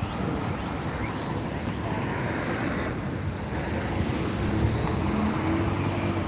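Road traffic: a vehicle driving past, with engine and tyre noise, and a faint engine hum building in the second half.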